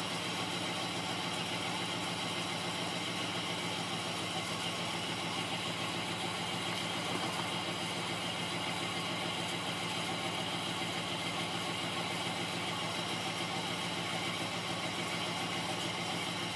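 2001 Oldsmobile Intrigue's 3.5-litre V6 engine idling steadily after its timing chain repair.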